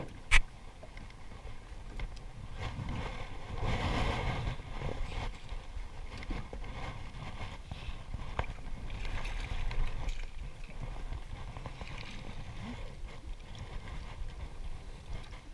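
Wind buffeting the microphone and small waves slapping against the side of a boat, rising and falling in gusts. A single sharp knock comes just after the start.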